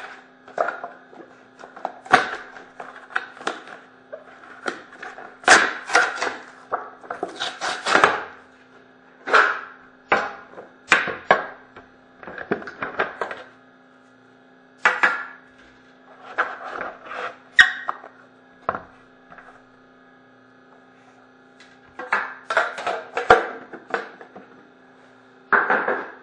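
A trading card box being handled and opened by hand: repeated short scrapes, rustles and knocks of cardboard and packaging, coming in bursts with a few pauses. A faint steady hum runs underneath.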